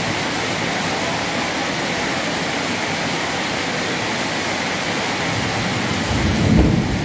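Heavy rain pouring steadily onto a flooded street, a dense, even hiss. A low rumble rises about six seconds in.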